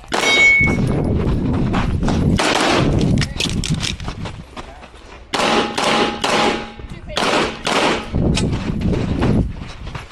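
Pistol shots fired in fast strings, a dense run in the first three seconds and more strings from about five seconds in, with short pauses between them.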